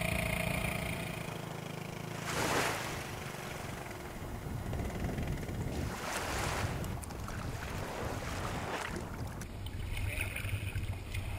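Small outboard motor on an inflatable dinghy running low and stopping about a second and a half in, then water sloshing and wind noise on the microphone, with a few louder swishes as the dinghy comes up onto the beach.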